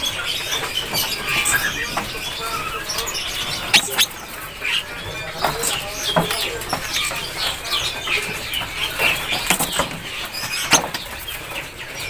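A crowded cage of green leafbirds (cucak hijau) fluttering and knocking against the bars, with many birds chirping in short overlapping calls and scattered sharp clicks.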